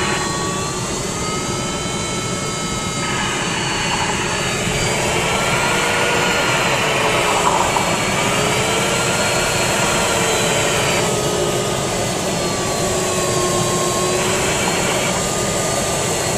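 Steady rush of air over the cockpit of a 304CZ sailplane in flight. Over it, the variometer's audio tone slides slowly up and down in pitch, following the changing climb and sink rate.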